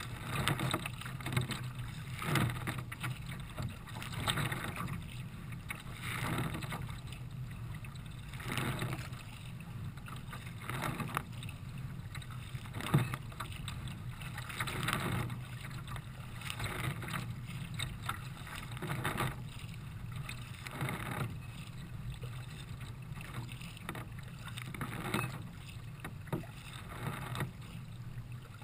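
Nelo kayak moving through choppy water: water rushing and slapping along the hull, with a regular splash about every second or two from the paddle strokes.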